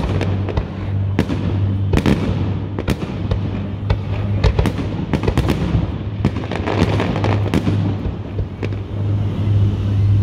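Aerial firework shells bursting overhead, a dozen or so sharp bangs at irregular intervals, with crackle between them. A steady low hum runs underneath.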